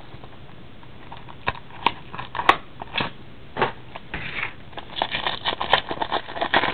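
Trading-card pack wrapper being torn open and crinkled by hand: irregular crackles and rustles starting about a second and a half in, growing denser near the end.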